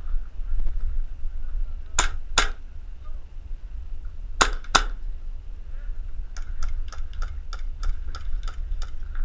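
Airsoft gunfire: two pairs of sharp, loud shots from a Tokyo Marui Hi-Capa 5.1 gas blowback pistol, then a fainter run of rapid shots at about four a second. A steady low wind rumble on the microphone lies under it.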